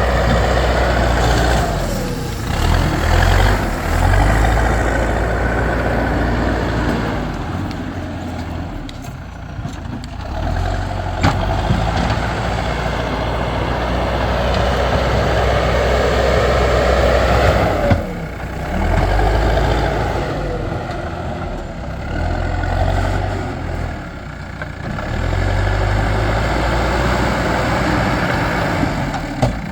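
Backhoe loader's diesel engine working, its note rising and falling every few seconds as the hydraulics take load, with a couple of sharp knocks.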